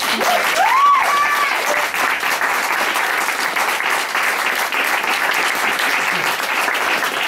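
Audience applauding in a burst that starts suddenly and carries on steadily, with one voice rising in a whoop about a second in.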